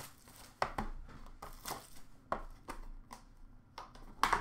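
Cardboard card box and packaging being handled and opened by hand: a handful of irregular taps, clicks and short rustles.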